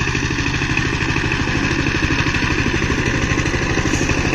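Single-cylinder diesel engine of a two-wheel power tiller running steadily with a fast, even chugging beat while it tills dry soil.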